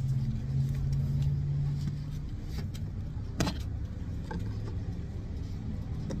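A motor vehicle's engine running with a steady low hum that shifts in pitch about two seconds in; a single sharp click about three and a half seconds in.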